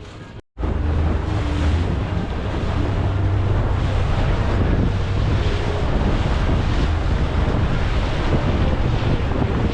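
Heavy wind buffeting the microphone and waves washing, with a motor boat's engine running underneath, as the boat crosses rough sea. The sound drops out briefly about half a second in, then comes back louder.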